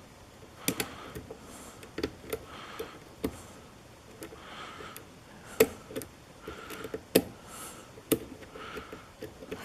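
A lock pick and tension wrench working the pins inside a Euro profile cylinder lock: irregular small metallic clicks and ticks, a dozen or so, as pins are lifted and set.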